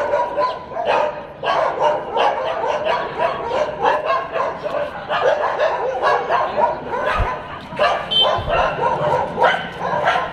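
Dogs barking and yipping over and over, short calls following one another without a break.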